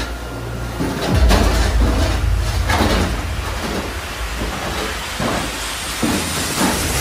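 Commercial restaurant dishwashing machine running with a steady low rumble and hiss, mixed with the clatter of racks and dishes. The rumble grows stronger about a second in.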